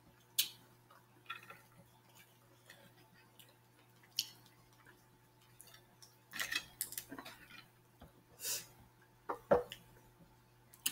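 Scattered light clinks and brief wet noises: a plastic spoon stirring and scooping in a glass bowl of sauce and mussel shells being handled, with a busier run of sounds in the second half.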